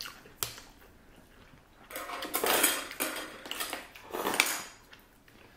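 Eating utensils (chopsticks and a spoon) clattering and scraping against dishes and takeout containers. There is a sharp click about half a second in, then two bursts of clatter, about two and four seconds in.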